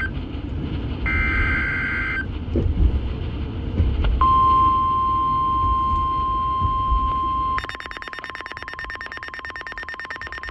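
NOAA Weather Radio Emergency Alert System tones: a short warbling two-tone SAME data burst about a second in, then the steady 1050 Hz warning alarm tone from about four seconds in. About seven and a half seconds in, the tone gives way to a rapid, buzzy, pulsing electronic alarm.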